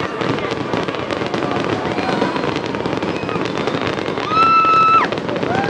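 Fireworks display with dense, continuous crackling from bursting crackle shells. About four seconds in, a loud steady whistling tone sounds over it for under a second, then drops off.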